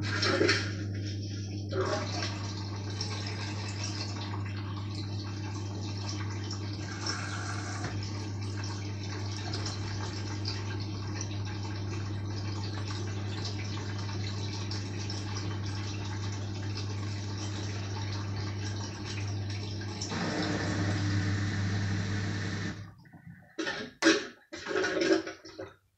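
LG washing machine's drain pump running with a steady hum as wash water rushes out, getting louder and more turbulent about 20 seconds in. It cuts out near the end, followed by a few short knocks.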